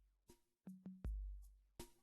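Background music: an electronic beat of deep bass-drum hits that fade slowly, with short sharp percussion hits in between.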